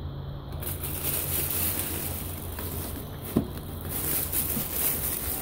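Books being handled on a shelf: a heavy hardcover omnibus slid back into place and plastic-wrapped paperbacks rustled and pulled out, with plastic crinkling throughout and a single knock a little over three seconds in.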